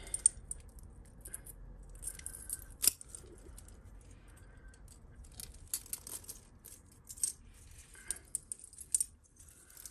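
Costume jewellery jangling and clinking as pieces are picked up and sorted: scattered light metallic chinks and clicks, with a sharp clink a little under three seconds in.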